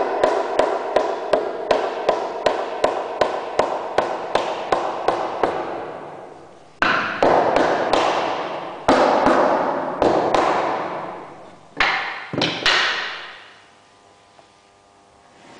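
A hammer striking the hardwood joint of a windmill's wooden central wheel. First comes a quick even run of taps, about three a second, for some six seconds. Then come heavier blows in small groups, each ringing out through the wood, stopping about 13 seconds in.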